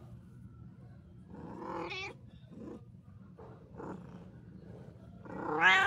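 Cat meowing: a rising meow about two seconds in, a couple of faint short mews after it, and a louder rising meow near the end, over a steady low rumble.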